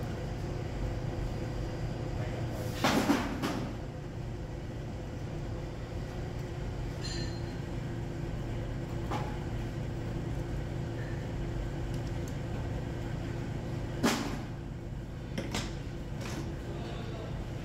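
Steady hum of welding equipment, with two loud metallic clunks about three seconds in and near the end and a few lighter knocks after the second, as steel tongs work in the granular welding flux on the steel test plate.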